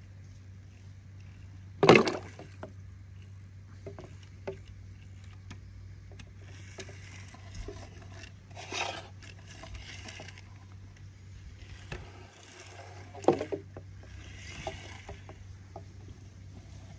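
A toy monster truck being handled: two sharp knocks, one about two seconds in and another near thirteen seconds, with light clicks and short scrapes on a surface in between, over a steady low hum.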